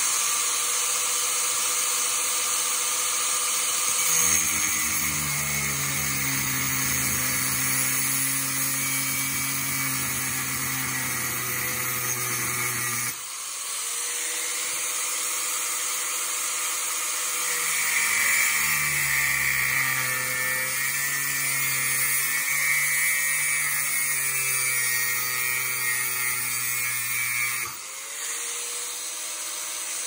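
Angle grinder grinding down the tabs of an aluminium Shimano XT crank spider. The motor runs at full speed, then its pitch drops as the disc is pressed into the metal, twice, and it speeds up again in between and near the end.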